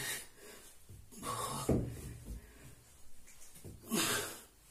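A man breathing hard from exercise exertion, with three forceful exhalations or gasps about a second or two apart.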